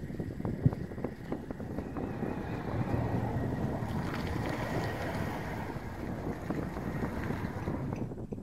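Gusty, low wind rumble on the microphone, with a single sharp thump about half a second in.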